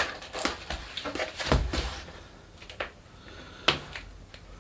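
Handling sounds of a comic parcel's packaging being pierced and worked open by hand: a few short scrapes and knocks with some rustling. The loudest comes about a second and a half in, and there are fainter ones near the end.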